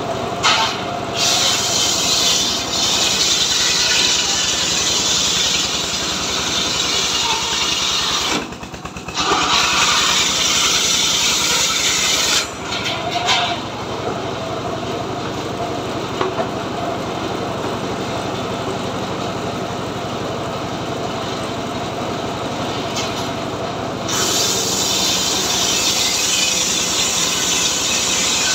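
Homemade trailer-mounted circular saw ripping teak logs into planks, its engine running steadily throughout. The blade cuts loudly and noisily for most of the first twelve seconds with a short break about eight seconds in, runs quieter in the middle stretch, and cuts again loudly over the last few seconds.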